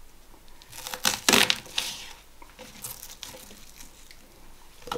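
Crackling and crinkling of a red onion's dry papery skin as the onion is handled and peeled, with a cluster of sharper crackles about one to two seconds in.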